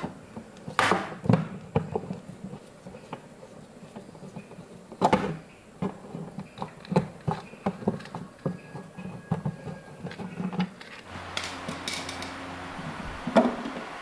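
Irregular knocks, taps and clatter of hard objects being handled, the loudest about a second in and about five seconds in. A steady low hum with a hiss comes in about eleven seconds in.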